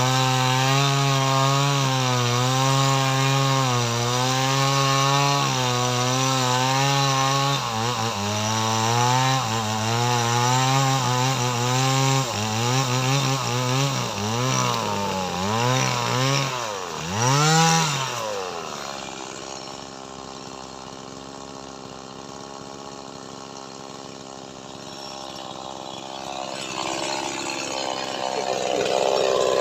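Mini Stihl two-stroke chainsaw running at high speed while cutting lamtoro wood, its pitch wavering under load. It then revs up and down a few times, and about eighteen seconds in it drops to a steady idle.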